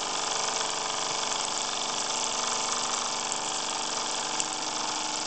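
Late-1970s Wilesco live-steam stationary engine running under steam: a steady, even hiss of steam with a watery edge.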